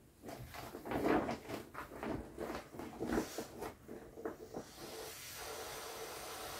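Vinyl (PVC) hull of a deflated Intex Wave Rider GP500 inflatable jet ski crinkling and crackling as it is folded and handled. About three-quarters of the way through, a steady hiss of air escaping the hull takes over as the folded bundle is pressed down.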